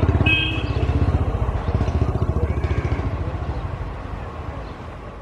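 Passenger coaches of an express train rolling away on the track: a low rumble and rapid clatter of wheels on rail that fades steadily as the train recedes. A short horn toot sounds just after the start.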